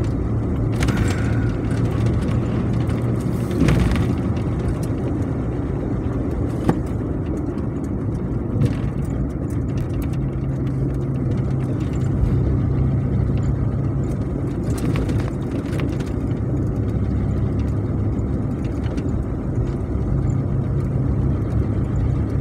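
1993 Ford Explorer Sport's 4.0-litre OHV V6 and road noise heard from inside the cabin while driving, the engine note shifting a couple of times with throttle. The engine runs smoothly, with no knocking, pinging or hesitation, now that the deteriorating ECU behind its rich running and bad idle has been fixed.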